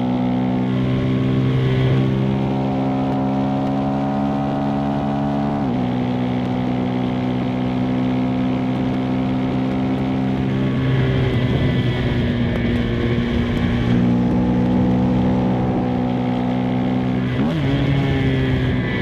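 KTM 390 SMC-R single-cylinder engine pulling under way, with loud intake noise from its Stage 2 DNA filter. The pitch climbs slowly, then drops sharply about six seconds in and again near the end, over a steady rush of wind and road noise.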